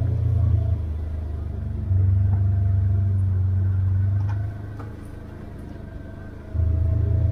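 Polaris General side-by-side's engine running on a trail, throttle going on and off. It eases back briefly about a second in, drops to a low, quiet run about four and a half seconds in, and picks up again strongly near the end.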